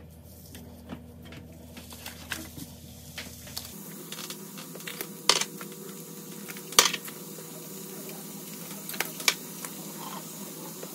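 Ground beef sizzling in hot olive oil in a frying pan, an even crackling hiss with a few sharp clicks of a utensil against the pan. A low hum in the first few seconds cuts off suddenly.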